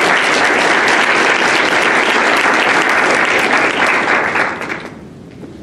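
Audience applauding: a dense, steady clapping that dies away about five seconds in.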